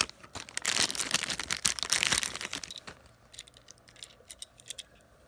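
Clear plastic packaging crinkling and crackling as a diecast toy car is pulled out of it, for about three seconds, then a few light clicks of the car being handled.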